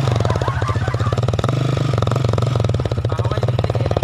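Small motorcycle engine idling, a rapid, even putter from its exhaust.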